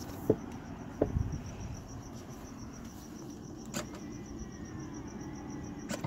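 Two knocks near the start and a click just before four seconds from handling a Tesla Mobile Connector's plug and charge cable. Under them, a cricket chirps steadily in a fast pulsing rhythm.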